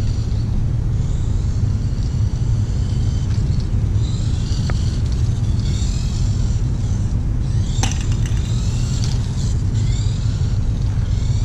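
Tamiya Dual Rider RC trike's small electric motor and gears whining in short bursts that rise and fall in pitch as the throttle comes on and off, over a steady low rumble. A brief sharp clatter comes about eight seconds in.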